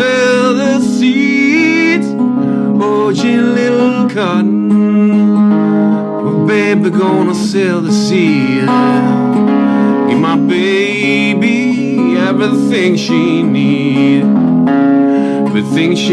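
Acoustic blues guitar playing an instrumental break, with a lead line of sliding, bending notes over a steady low accompaniment.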